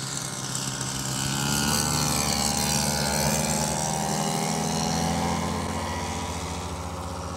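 Twin propeller engines of a large-scale radio-controlled twin-engine amphibian making a low fly-past: growing louder for the first two seconds or so, then dropping in pitch and slowly fading as it goes by.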